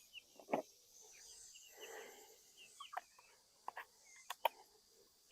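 Faint chicken clucking and small chirps, with several sharp clicks and taps scattered through, the loudest about half a second in.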